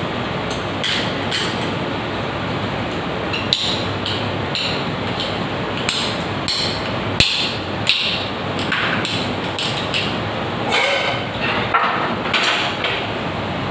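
Chisel work on a broken threaded stub stuck inside a wall water-supply pipe outlet: irregular sharp metallic knocks and clinks, a few harder than the rest, over a steady rushing background noise.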